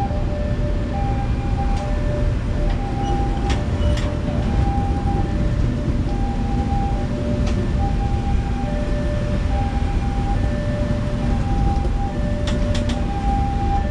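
Passenger coaches of a train running past at close range with a steady heavy rumble from their wheels on the rails, and a few sharp clicks now and then. Under it, a level-crossing warning alarm keeps sounding, alternating between a higher and a lower tone about once a second.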